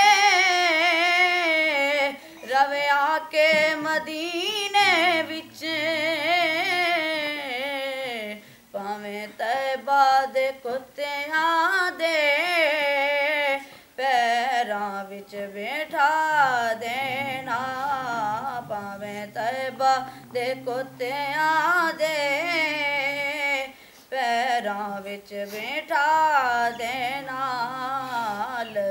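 A boy singing a Punjabi naat, long phrases of wavering, heavily ornamented held notes with short breaks between them.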